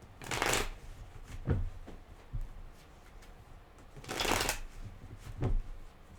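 A deck of tarot cards being shuffled: two short riffling rushes about four seconds apart, with a few soft knocks of the cards in between.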